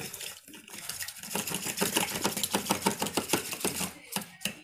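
A rapid run of sharp clicks or rattling, about nine a second, starting about a second in and stopping about a second before the end.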